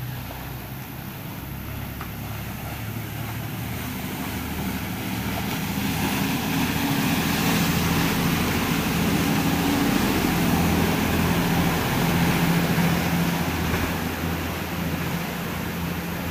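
Khlong Saen Saep passenger boat's diesel engine running as the boat passes close by, growing louder over the first few seconds and fading near the end, with the wash of its churning wake.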